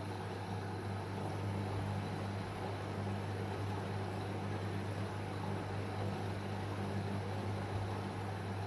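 Washing machine running with a steady low hum and an even mechanical whir.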